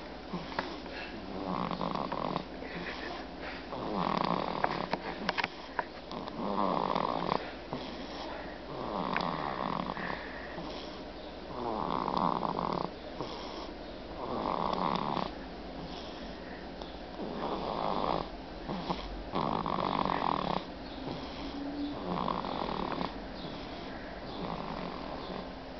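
Snoring in a slow, steady rhythm: about nine rasping breaths, each lasting around a second and coming roughly every two and a half seconds.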